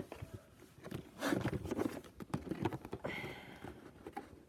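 A cardboard game box being handled: scattered taps and clicks with rustling scrapes of cardboard, the loudest scrape about a second in and a shorter, squeakier one near three seconds.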